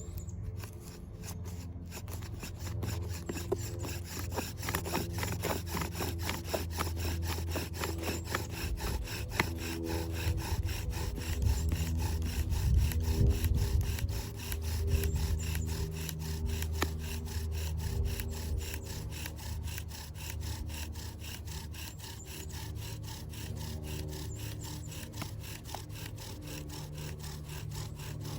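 Bow drill burning in: the bow is stroked back and forth, spinning a thin wooden spindle in a wooden fireboard with a steady rhythmic grinding and rubbing of wood on wood.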